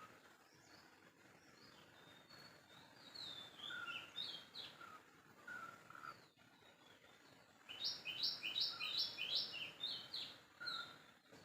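Birds chirping and calling over a faint, steady background of outdoor ambience. A short lower call recurs every few seconds among higher chirps, and a quick run of high notes comes about eight seconds in.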